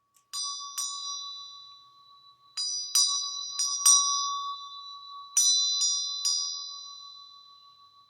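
Small high-pitched bells struck in three clusters, about nine strikes in all (two, then four, then three), each ringing out and fading, over a faint steady tone.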